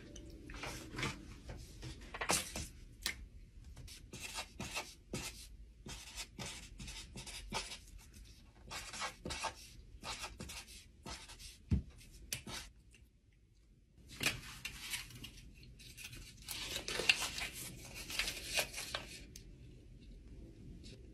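Felt-tip marker writing on paper in many short scratchy strokes, with some handling of the paper. The strokes pause briefly about 13 seconds in, then come thicker for several seconds.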